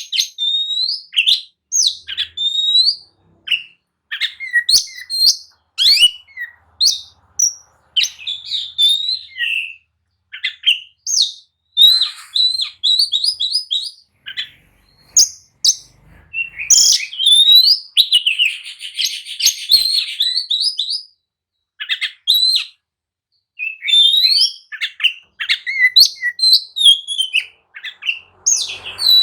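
Oriental magpie-robin in full, agitated territorial song: quick, varied whistled phrases and chirps with short pauses, and a harsh buzzy rattle about two-thirds of the way through.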